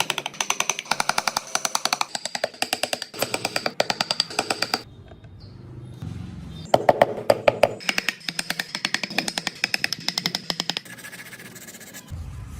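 Rapid tapping of a carving tool on wood, about ten strikes a second, in spells with short pauses in between.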